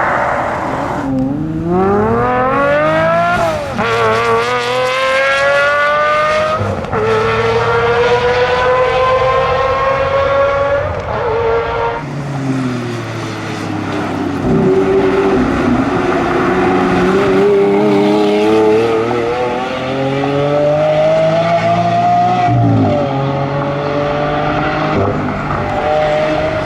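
V12 supercar engine accelerating hard through the gears, its revs climbing and dropping at each upshift every few seconds. Partway through, the revs fall away, then climb more slowly before another upshift.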